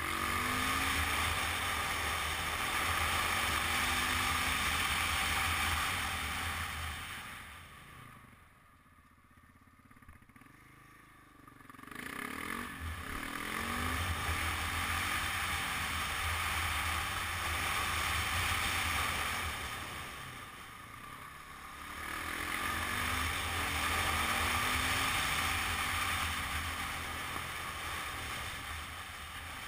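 Supermoto motorcycle engine running under way with wind rushing over the camera microphone, the engine pitch rising and falling as the rider accelerates and backs off through the curves. Twice the sound drops away, almost quiet for a few seconds about a third of the way in, and dimmer again about two thirds in.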